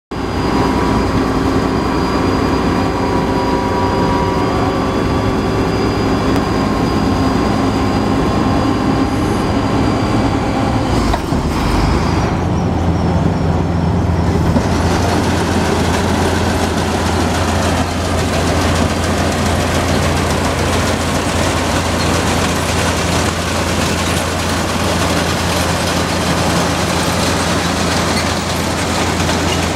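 A John Deere combine with a 1998 MacDon 972 draper header running: a loud, steady mechanical noise with an engine hum. About eleven seconds in the sound changes, and a deeper steady hum with a harsher clatter takes over.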